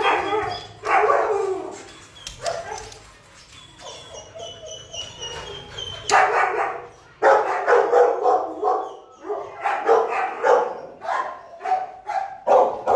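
Shelter dogs barking and yipping over and over, getting denser and louder from about six seconds in; they are worked up by staff handing out squeaky toys.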